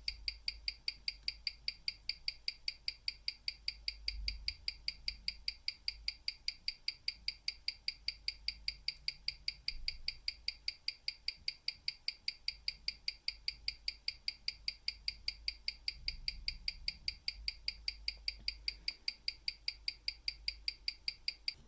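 A vintage 17-jewel Croton manual-wind watch movement ticking at a rapid, perfectly even rate, the ticks sharp and high. The beat error has just been adjusted down to about 0.3 ms.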